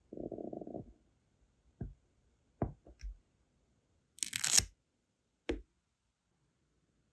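Brass wax-seal stamp with a wooden handle pressed into sealing wax on a ceramic plate: a short muffled rub at the start and a few light knocks. About four seconds in there is a brief crackling peel as the stamp is pulled off the set wax, then one more knock.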